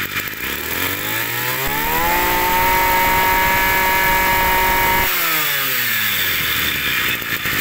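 Kioritz 253 brush cutter's small two-stroke engine running at idle, then revved up to full throttle about a second in, held steady for about three seconds, and let back down to idle about five seconds in.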